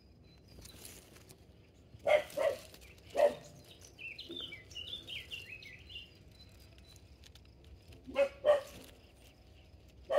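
A dog barks in short groups of two or three, with a small bird singing a brief warbling phrase between the groups.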